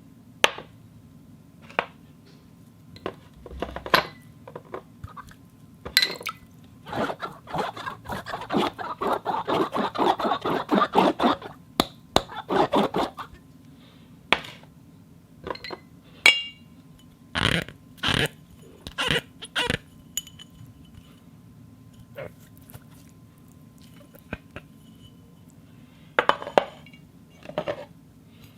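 Glass objects clinked, tapped and scraped to imitate animal voices: scattered sharp clinks, some ringing briefly, and a long run of rapid squeaky strokes from about seven to thirteen seconds in.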